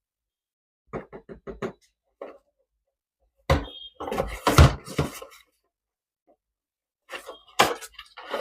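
Handling noises: a quick run of light clicks, then a heavy knock about three and a half seconds in, followed by a second or so of scraping and rustling, and more knocks near the end.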